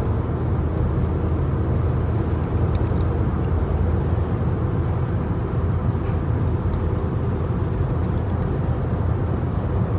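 Steady road and engine noise of a car driving along, heard from inside the cabin.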